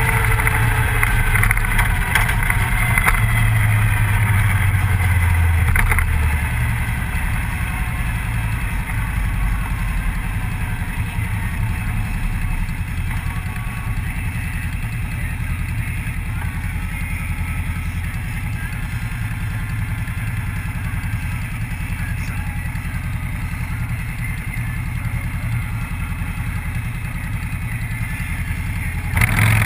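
Motorcycle engine running under way, with wind and road noise on a bike-mounted camera. It is louder for the first several seconds, then settles to a lower, steady level.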